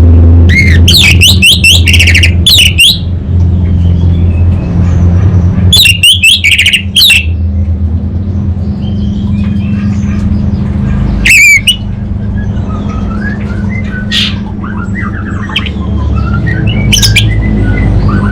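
Orange-headed thrush singing in loud bursts of fast, sweeping notes: a long burst at the start, another about six seconds in, a short one near twelve seconds, then softer scattered calls. A steady low hum runs underneath.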